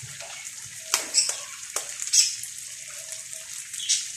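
Sisig sizzling on a hot cast-iron sizzling plate over a gas flame: a steady hiss with a handful of sharp crackles and pops as a raw egg goes onto the plate.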